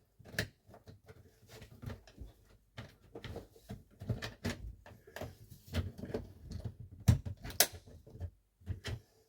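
Handling clatter of an RC boat's hatch lid being fitted onto and lifted off a push-button latch post: a string of light knocks and clicks, with two sharper clicks about seven seconds in.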